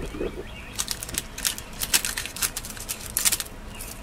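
Small clear plastic bag of glass beads crinkling and crackling as it is handled and opened by hand, a run of irregular light clicks.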